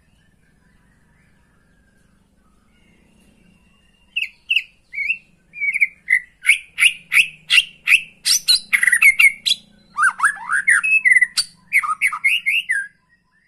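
White-rumped shama singing: after a few quiet seconds, a fast, loud run of short, sharp notes, many sliding up or down in pitch, which stops just before the end.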